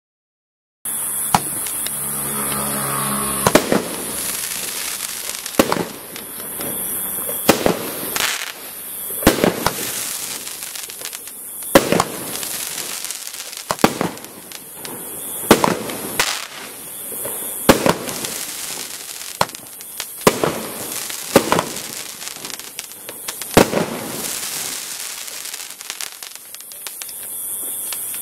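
A 12-shot firework cake firing: a series of sharp bangs, one every one to two seconds, over a steady hiss and crackle.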